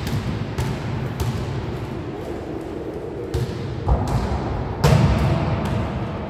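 Basketballs bouncing on a sports hall floor as several children dribble, the thuds echoing in the large hall. One louder thud comes about five seconds in.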